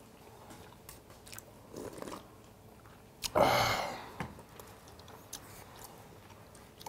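A person chewing a mouthful of cold buckwheat noodles and grilled rib meat, with a few light clicks of metal chopsticks against a steel bowl. A loud short burst of noise comes about three seconds in and fades within half a second.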